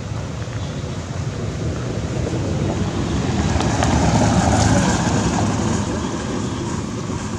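A broad outdoor rushing noise that builds to its loudest about halfway through and then eases off again.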